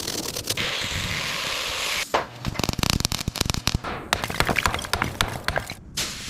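A steady hiss for about two seconds, then a rapid, irregular run of sharp cracks and knocks.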